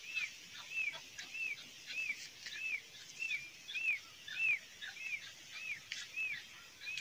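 Newly hatched peafowl chicks peeping: a steady string of short, high peeps, each rising and then falling, about two a second.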